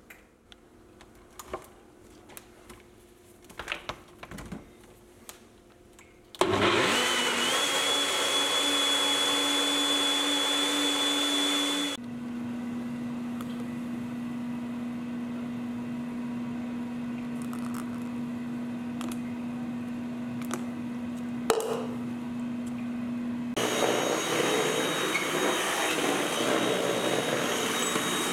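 A few light clicks and knocks, then a kitchen blender starts about six seconds in, its whine climbing briefly and then holding steady. About twelve seconds in it drops to a quieter, lower steady motor hum, and in the last few seconds a stick vacuum cleaner runs with a louder, hissier sound.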